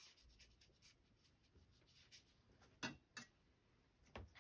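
Faint soft scratching of a wet watercolour brush stroking across watercolour paper, with a few light taps or clicks about three and four seconds in.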